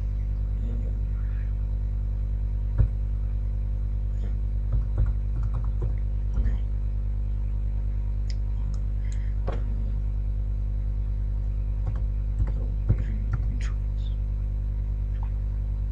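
A steady electrical hum on the recording, with a few scattered computer keyboard clicks as search words are typed.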